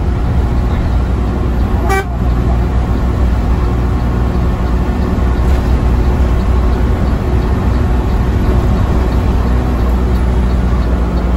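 Steady engine and road drone of an intercity coach, heard from inside the cabin as it drives along. A short sharp blip sounds about two seconds in.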